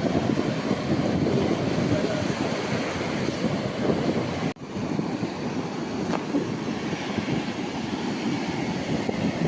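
Sea surf washing on the shore with wind rumbling on the microphone, a steady noisy wash. It cuts out abruptly for a split second about four and a half seconds in, then resumes.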